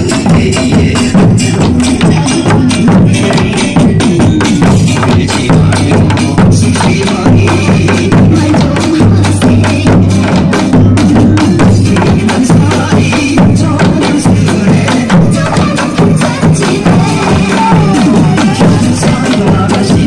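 Korean folk drums, janggu hourglass drums and buk barrel drums, beaten together by a group in a fast, dense, steady rhythm.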